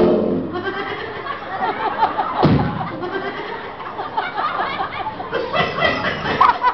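Audience voices after the music stops: many overlapping shouts, high shrieks and laughter, with one thud about two and a half seconds in.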